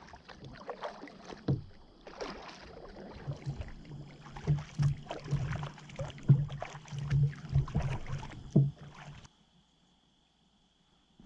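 Kayak paddling: a double-bladed paddle dipping and splashing in calm water, with irregular knocks of the paddle and gear against the kayak hull. The sound cuts off abruptly about nine seconds in, leaving near silence.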